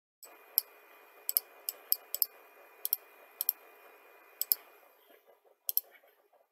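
Computer mouse clicks: about a dozen sharp clicks, many in quick pairs, over a faint steady microphone hiss.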